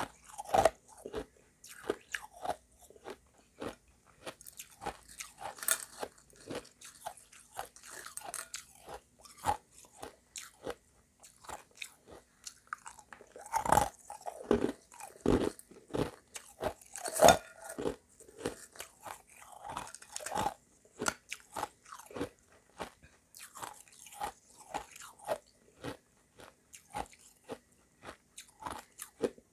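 Close-up crunching and chewing of refrozen shaved ice mixed with crushed ice: a dense, irregular run of hard crunches, with a cluster of louder bites partway through.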